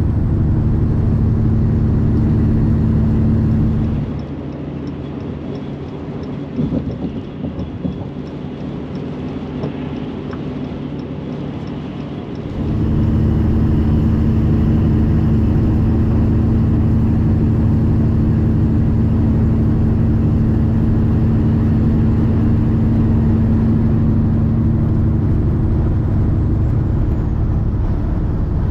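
Vehicle engine running steadily with road noise, heard from inside the cab on a wet highway. About four seconds in, the engine drone drops away for roughly eight seconds, leaving quieter tyre and road noise with a faint regular ticking. The drone then returns and runs steadily.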